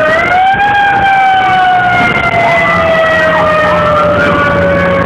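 Fire engine siren, loud, rising briefly near the start and then falling slowly and steadily in pitch. A second, fainter wavering siren tone and a low engine hum sound underneath.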